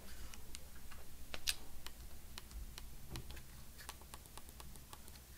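Small plastic clicks from a Sony A6400's rear control wheel and buttons pressed repeatedly as the menu is scrolled. The clicks come irregularly, several a second, with one louder click about a second and a half in.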